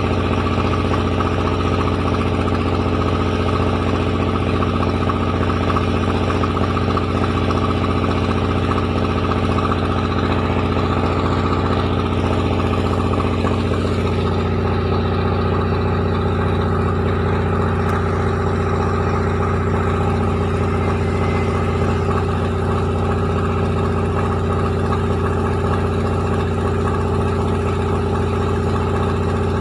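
Rice milling machine running steadily: a continuous machine drone with a strong low hum and many steady tones over a rushing hiss. About halfway through the higher hiss eases off and a mid-pitched tone holds steadier.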